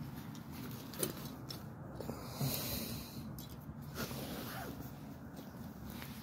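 A dog snuffling and breathing close to the microphone while a nylon harness is handled, with a few soft clicks and a brief rush of noise in the middle.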